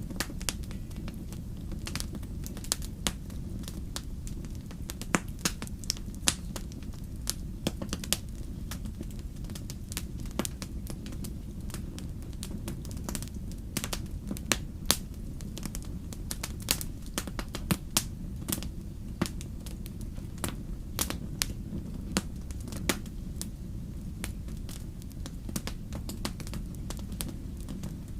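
Wood fire crackling, with frequent irregular sharp pops and snaps of burning logs, over a steady low rumble.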